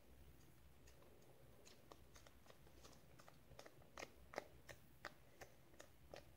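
Faint, soft clicks and pops of butter slime being squeezed and stretched by hand. They are sparse at first, then come about every half second from a little past the middle.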